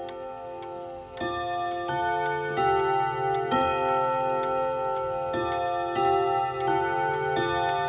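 1954 Odo 24/10 French chiming clock playing a chime melody: its hammers strike the long gong rods one note after another, each note ringing on under the next, with the clock's ticking heard behind.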